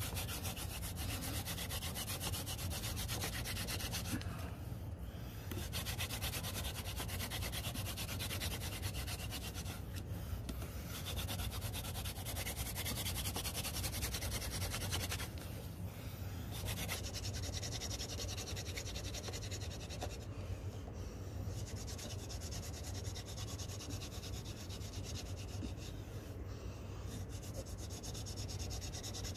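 Hand drill fire-making: a wooden spindle spun between the palms grinds against a wooden hearth board with a continuous rasping friction, broken by brief pauses about every five or six seconds.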